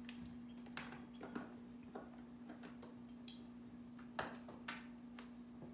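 Faint, scattered clicks and taps of plastic tubing and a hose clamp being handled and fitted, a few seconds apart, over a steady low hum.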